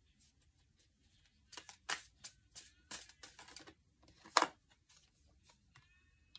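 A deck of tarot cards being handled: a run of light clicks and flicks as cards are pulled, with one sharper snap a little over four seconds in.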